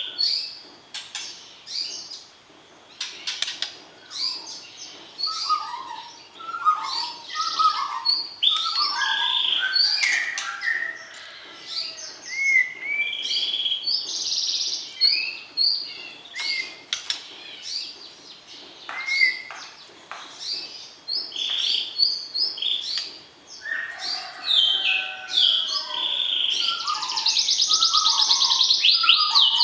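White-rumped shama singing: a varied run of clear whistled phrases and quick chattering notes, with a fast, rattling trill of rapidly repeated notes near the end.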